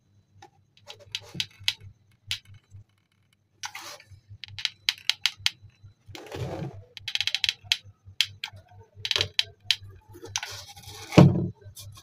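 Hands handling a small cardboard box and tools: a run of sharp clicks and taps with short scraping rustles of cardboard, and a thump about eleven seconds in.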